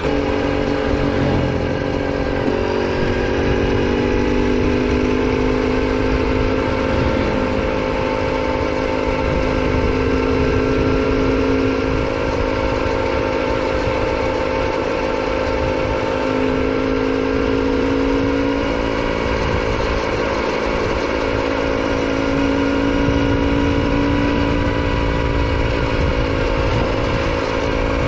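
Bajaj M80's single-cylinder two-stroke engine running steadily under way at a near-constant cruising speed, with wind noise from riding.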